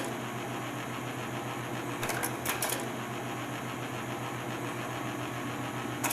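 A small machine running steadily with a low hum and a fast, even mechanical rattle, with brief clusters of clicks about two seconds in and again near the end.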